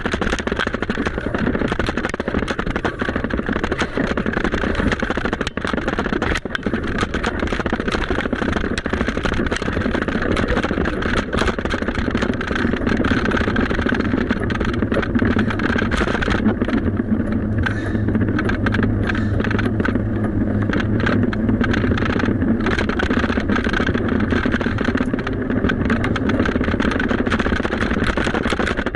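Steady rushing and rumbling noise of riding a bicycle: wind on the microphone and tyres rolling on the path, with a low hum that swells in the middle.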